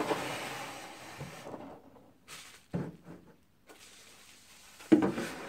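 Plastic packaging rustling as the kit's parts are handled. Then a sharp knock just under three seconds in, and a louder one near the end, as plastic pieces are set down on a tabletop.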